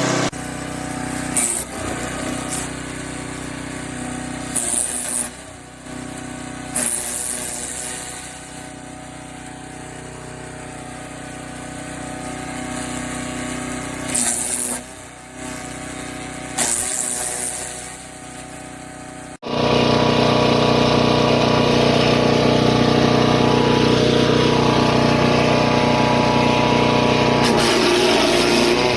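Forest Master FM6DD wood chipper's 6 hp petrol engine running steadily, with several short bursts of hissing noise over it. About two-thirds in, the sound cuts abruptly to a louder, steadier run of the engine.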